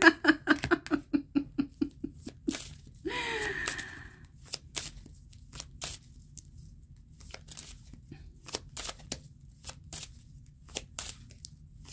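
Tarot cards being shuffled and handled. A quick run of card clicks slows over the first two seconds, then scattered single snaps and flicks follow. A short hum from the reader sounds about three seconds in.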